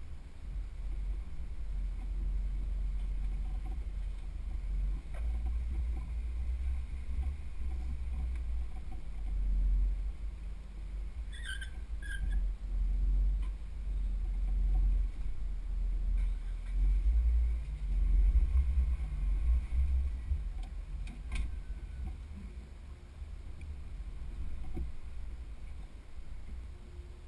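Low, muffled rumble of a Jeep crawling slowly over rock, heard through a camera mounted outside on the hood, mixed with wind buffeting the microphone that swells and fades.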